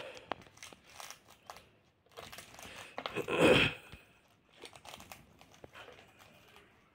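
Alexandrine parakeets crunching pieces of Kurkure corn snack in their beaks: scattered crisp little cracks, with a longer, louder crunch about halfway through.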